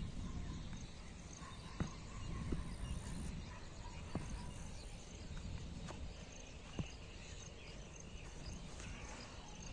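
Outdoor field ambience: a steady low rumble with faint insect chirping above it, and a few scattered short clicks and knocks.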